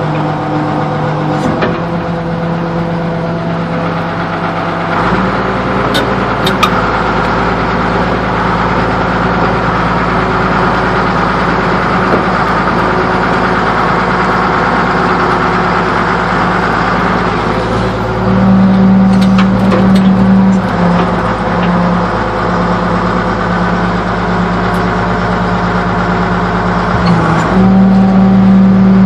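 Excavator engine running while the hydraulics are worked. The engine note steps up about five seconds in, gets louder again a little past the middle and once more near the end, with a few light clicks.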